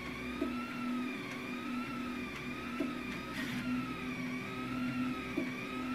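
Anycubic Kossel delta 3D printer printing: its stepper motors whine, the pitch rising and falling over and over as the carriages move, over a steady low hum, with a few faint clicks.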